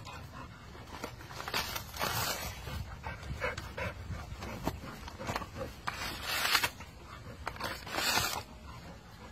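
A dog panting as it bites and tears at a coconut's fibrous husk, with several louder bursts of ripping, scraping fibre and small clicks of teeth and claws on the shell.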